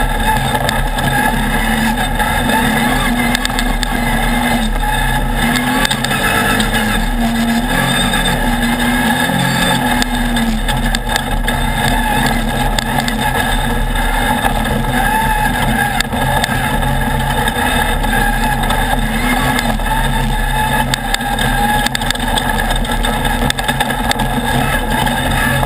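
Off-road race buggy's engine running hard at speed, its pitch rising and falling as the driver works the throttle, heard from on board with road and wind noise and frequent knocks from the rough ground.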